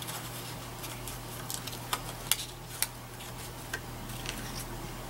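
Scissors snipping through cardstock to cut out a stamped image: a handful of short, sharp blade clicks at uneven intervals.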